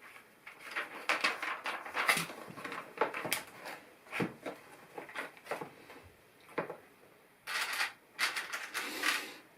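Plastic LEGO pieces clicking and clattering as they are handled and pressed together, with brief rustling scrapes among the clicks and a short pause about seven seconds in.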